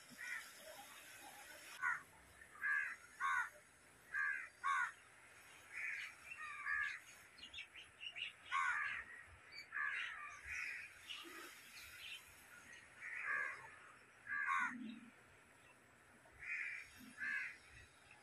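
Crows cawing over and over, short harsh calls coming singly and in pairs every second or so.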